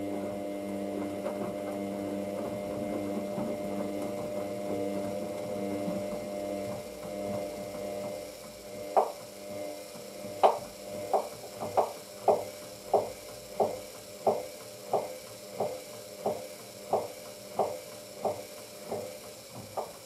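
Hoover DYN9144D3X washing machine on an intermediate spin. Its motor hums steadily for about eight seconds, then the hum fades and the drum turns slowly, with a regular knock a little under twice a second. It is another failed attempt to get up to spin speed, the machine repeatedly failing to spin.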